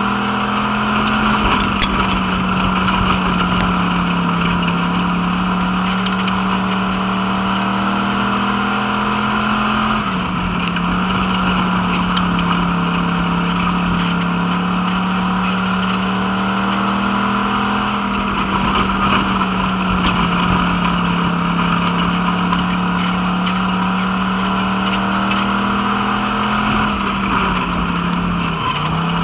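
Wissota Pure Stock race car's V8 engine under racing throttle, heard from inside the cockpit. The note holds high and dips briefly and recovers about every eight or nine seconds as the car goes through the turns of the dirt oval.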